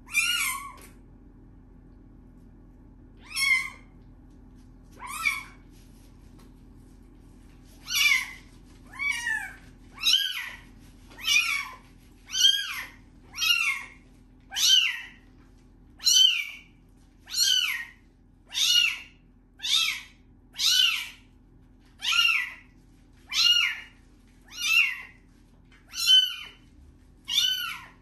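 A young kitten meowing over and over in high-pitched cries, each rising then falling in pitch, while it is held and washed: a few cries at first, then about one a second from around eight seconds in.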